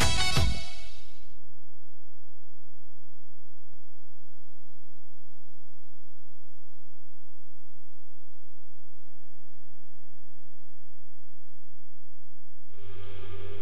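Steady electrical mains hum with a few even overtones, left after the music cuts out about half a second in. New music starts near the end.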